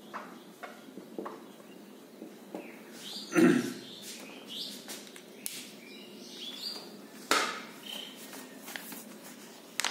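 Short high chirps and squeaks, with a loud thump about three and a half seconds in and a sharp click a little after seven seconds.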